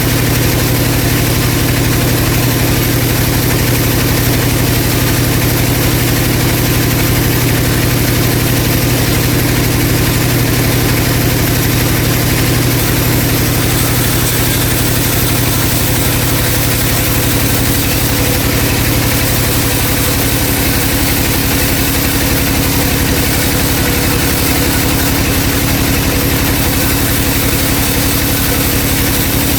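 Vertical band saw running and sawing through a log: a steady, loud machine hum over a dense hiss, its tone shifting about halfway through.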